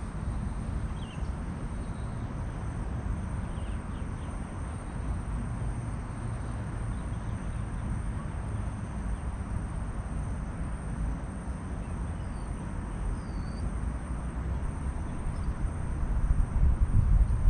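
Outdoor waterside ambience: a steady low rumble that grows louder near the end, a thin steady high insect drone, and a few faint, brief bird chirps.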